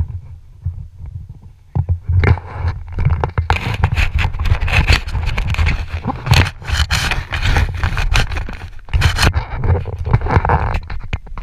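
Wind buffeting a head-mounted camera's microphone, with loud, close rustling and scraping from about two seconds in as the parachute's nylon and lines are handled against the camera. The rustling stops briefly near the end.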